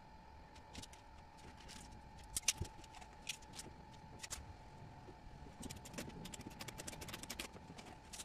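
Faint scattered clicks and taps from handling a tape measure and strap against a PVC pipe frame, over a faint steady tone.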